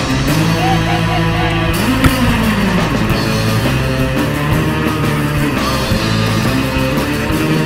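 Rock music with guitar, playing steadily as a soundtrack.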